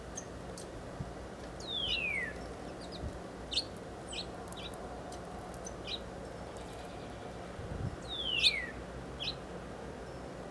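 Small birds calling: two clear whistled notes that slide down in pitch, about six seconds apart, with short high chirps scattered between them, over a faint steady hum.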